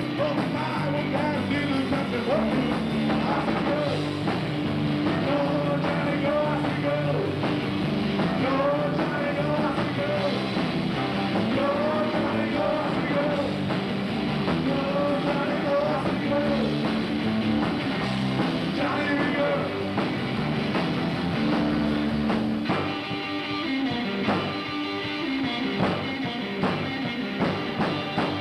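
Live rock band playing: electric guitars, bass and drum kit at full volume, with a wavering lead line over the top. About 23 seconds in, the low end drops back and the playing thins out.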